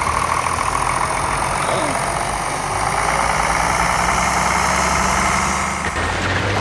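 Heavy machine's diesel engine running steadily, with a broad mechanical hiss over it; the sound changes abruptly about six seconds in.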